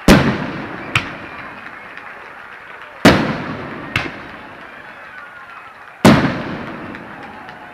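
Fireworks: three loud aerial shell bursts about three seconds apart, each with a decaying tail. The first two are each followed by a fainter crack under a second later.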